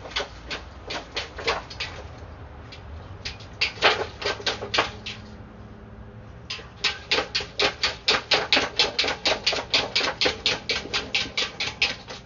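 A large dog's front paws slapping and splashing the water in a stainless steel bowl. The strokes come in short runs at first, then in a steady run of about five a second through the second half.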